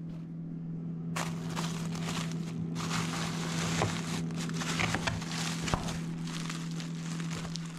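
Thin plastic bag crinkling and rustling as a bag of frozen bait is grabbed and pulled out of a freezer. The crinkling starts about a second in, over a steady low hum.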